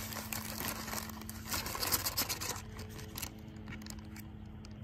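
Plastic zip-top bag crinkling and rustling as it is handled and powdered sugar and cocoa are tipped into it, with a soft scrape of the paper boat; the rustling is busiest around the middle.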